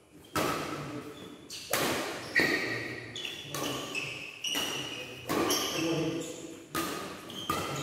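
Badminton rally: sharp racket-on-shuttlecock hits about once a second, echoing in the large hall, with short high squeaks of court shoes on the floor between them.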